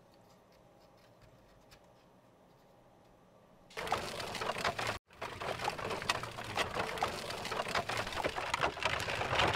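Near silence for the first few seconds, then a sudden, dense crackling clatter of many small clicks about four seconds in, broken by a split-second gap around five seconds in.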